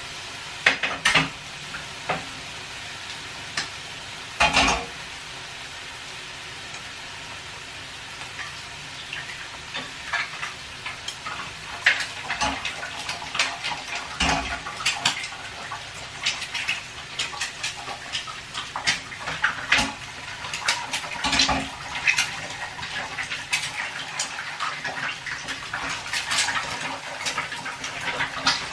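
Dishes and cutlery clattering and clinking at a kitchen counter, many sharp knocks at irregular intervals, busier in the second half. Under it runs a steady sizzle from steak frying on a grill plate.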